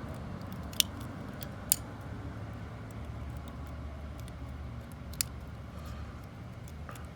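Small plastic clicks and taps as the plastic cover is worked onto a TIPM wiring connector: three sharp clicks, about a second apart early on and one more later, with fainter ticks between, over a faint steady low hum.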